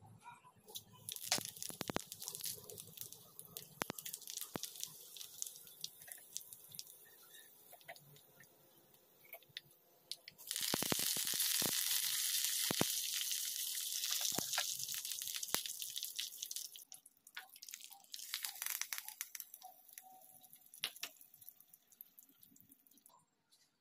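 Hot oil in a small pan crackling and popping as the seeds and dal of a South Indian tempering fry. About ten seconds in it breaks into a loud, steady sizzle as curry leaves and dried red chillies fry, then thins back to scattered crackles.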